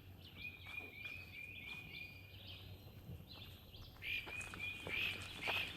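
A songbird calling a quick series of short, slightly falling notes, about three to four a second, in the first half, then louder again from about four seconds in. Footsteps crunch on the trail under the later notes.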